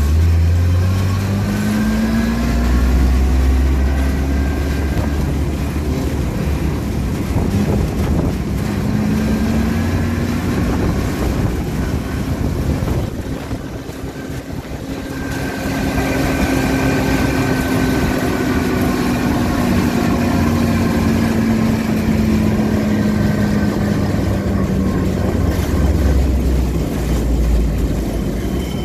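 M3A1 half-track's White six-cylinder gasoline engine and drivetrain running as the vehicle is driven. A whine rises and falls in pitch several times as it gathers and loses speed, and the sound eases off briefly about halfway through.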